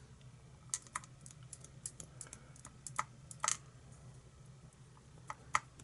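Irregular light clicks and taps of small lock pins and tools being handled while a pin-tumbler lock is taken apart, over a low steady hum.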